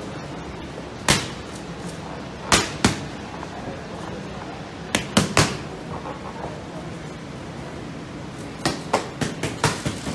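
Boxing gloves hitting a trainer's pads in combinations: a single punch, then a double about two and a half seconds in, a quick three-punch combination about five seconds in, and a rapid flurry of about eight punches near the end.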